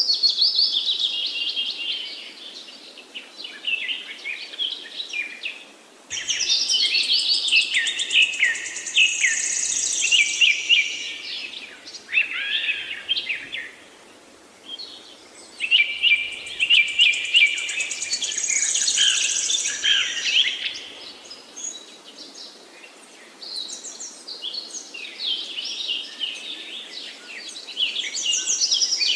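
Birds chirping and trilling in bursts of a few seconds, with short lulls between them.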